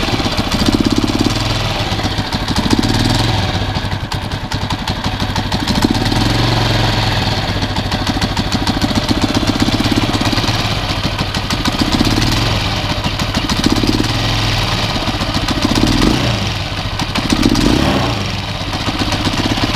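Honda TMX 155's air-cooled single-cylinder four-stroke engine idling steadily, its level rising and falling slightly every few seconds. It is test-running after a valve clearance adjustment that the owner judges good.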